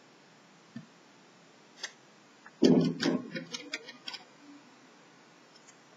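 A couple of small clicks, then a dull knock and a quick run of sharp clicks as a screwdriver is handled and set against the plastic bottom case of a Lenovo Y450 laptop to work a screw.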